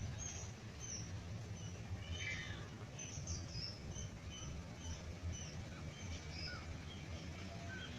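Many small birds chirping: short, high chirps scattered irregularly throughout, over a low steady rumble.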